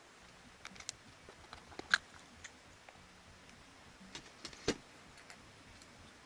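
Scattered light clicks and taps, with two sharper knocks about two seconds in and near the five-second mark: small parts and hand tools being handled during the disassembly of an impact driver.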